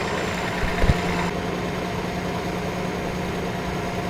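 Forestry harvester's engine idling steadily, with two short knocks just under a second in.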